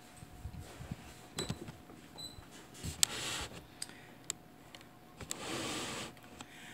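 Handling noise from a hardcover picture book being moved and held up close: scattered light knocks and clicks, and two short swishes, one about three seconds in and one near the end.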